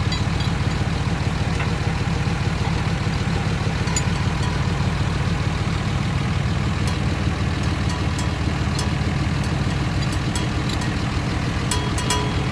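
Diesel pickup truck engine running steadily at low speed, with a few light ticks near the end.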